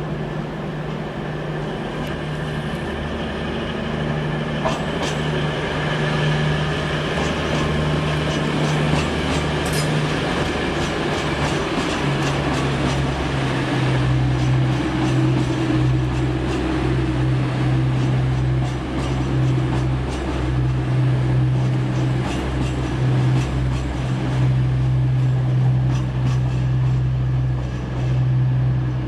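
East Midlands Trains Class 222 Meridian diesel multiple unit arriving, its underfloor diesel engines droning steadily. The engine note shifts about halfway through, and the wheels click now and then over rail joints.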